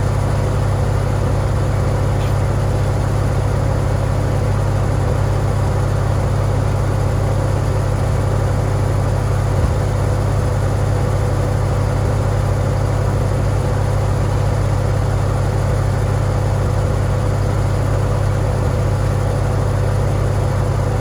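Farmall tractor engine running at a steady speed, driving a board edger that is not cutting.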